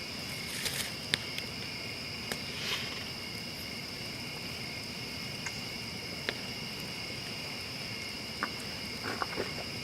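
Crickets chirping in a steady, continuous chorus, with a few faint clicks.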